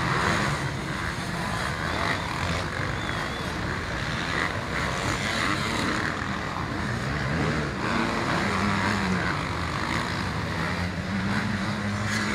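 Several motocross bikes running on a dirt track, their engines revving up and dropping back as the riders work through the course, the pitch rising and falling over a steady mix of engines.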